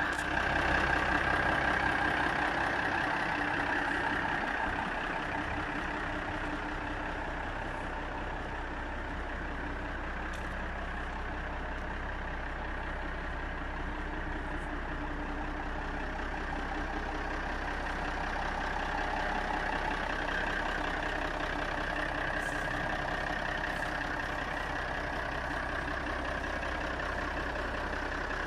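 Fiat 180-90 tractor's six-cylinder turbo diesel engine idling steadily, a little louder for the first few seconds.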